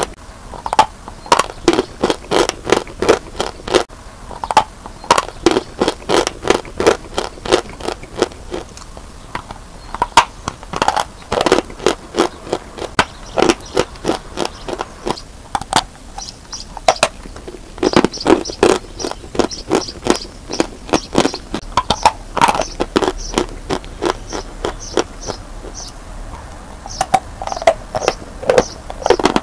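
Lumps of dry chalk being bitten and chewed, giving crisp crunches in quick runs of about three or four a second, broken by a few short pauses.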